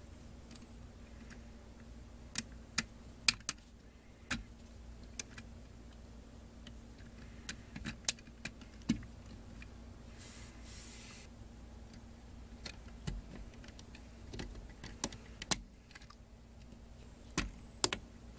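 LEGO Technic plastic beams and pins being handled and pressed together: irregular sharp plastic clicks and snaps, a few much louder than the rest.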